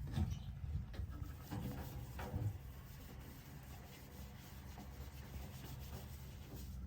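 Diesel engine of the earthmoving machinery running steadily at low revs. In the first couple of seconds there are a few scraping, rubbing noises of soil being worked.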